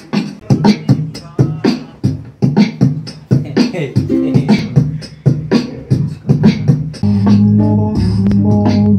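Beatboxing into a handheld microphone through a loop station: quick, sharp mouth-made kick and snare strikes in a steady beat. About seven seconds in, a low held bass tone comes in under the beat.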